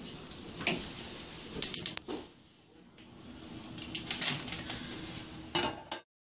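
Scattered light clicks, taps and rustles of kitchen things being handled as a grilled cheese is started, with a quiet stretch in the middle; the sound cuts off suddenly near the end.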